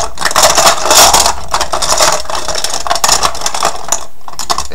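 Poker chips clattering and rattling as a hand stirs through them in a cup to draw one out, a dense run of small clicks.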